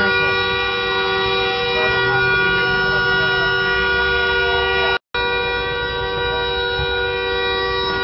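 Car alarm sounding as one steady, unbroken horn blare, set off by the crash. It drops out for an instant about five seconds in.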